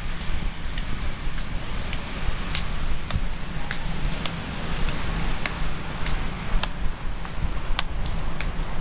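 Walking footsteps on paving, a sharp click about every two-thirds of a second at an even walking pace, over a steady low rumble of wind on the microphone.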